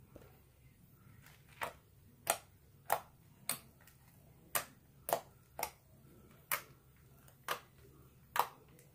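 Fingers poking clear-glue slime spread on a plastic sheet, giving about ten sharp pops and clicks, spaced unevenly half a second to a second apart.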